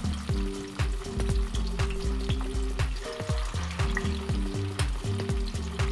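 Cubes of firm tofu deep-frying in hot oil in a stainless steel pot, with a busy, steady crackling sizzle. About four seconds in, a utensil nudges the pieces in the oil. A low background tune with a regular beat runs beneath.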